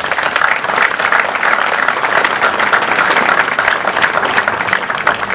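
Applause from a small crowd: many people clapping at a steady level.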